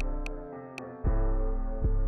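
Background music with held tones and a steady beat of about two a second. The bass and beat drop out for the first second, with two sharp clicks in the gap, then come back in.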